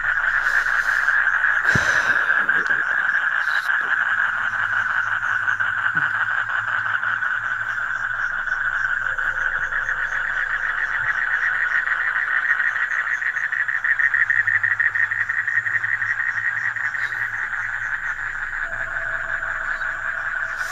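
A dense, steady chorus of frogs calling, a fast continuous trilling pulse. A single sharp knock sounds about two seconds in.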